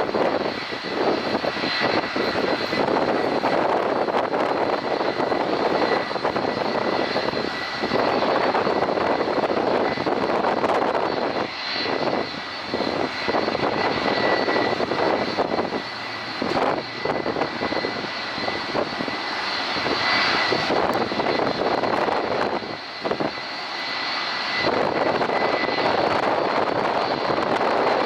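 Airliner jet engines running on the ground at low power: a continuous rushing noise with a steady high whine through it, swelling and dipping as aircraft move about.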